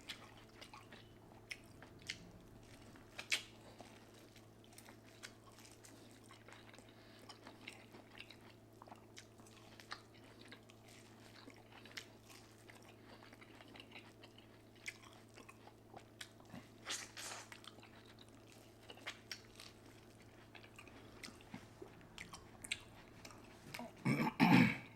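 Close-miked eating of seafood boil ramen: chewing and biting with scattered sharp mouth clicks and smacks over a faint steady hum, and a louder burst of mouth noise near the end.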